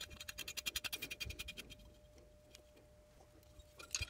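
A steel bolt spun by hand down into a coil thread insert in a cast aluminum bearing retainer, giving a quick run of fine metallic ticks, about ten a second, for a second and a half. A couple of sharp clicks near the end as a pliers wrench is set on the bolt head.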